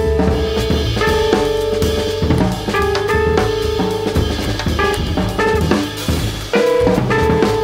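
Jazz guitar trio playing: an archtop electric guitar plays single held notes over double bass and a drum kit busy with snare, rimshots and bass drum. The trumpet rests.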